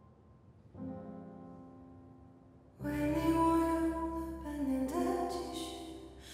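A soft piano chord fades. About three seconds in, a woman starts singing a ballad over instrumental accompaniment, much louder than the opening.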